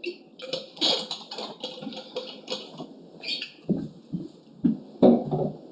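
Drinking from a water bottle: a run of small irregular sips, swallows and bottle noises, followed by a few footsteps thudding on the floor over the last couple of seconds.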